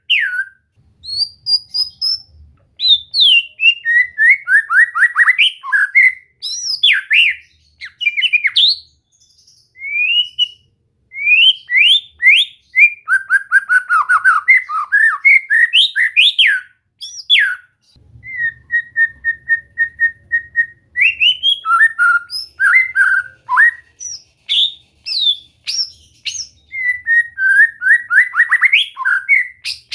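White-rumped shama (murai batu) singing: a varied string of loud whistled phrases, quick trills and sweeping notes, with short pauses, and a run of repeated notes on one pitch a little past the middle.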